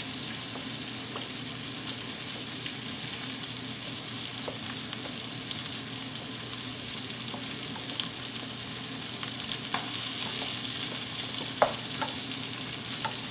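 A spoon stirring hot orzo, chicken and frozen broccoli in a large stainless steel mixing bowl, with a few light clinks of the spoon against the bowl, the sharpest near the end, over a steady hiss.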